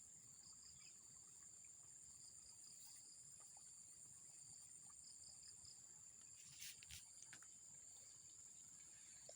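A faint, steady chorus of insects with high, continuous trilling over near silence. A couple of faint clicks come about seven seconds in.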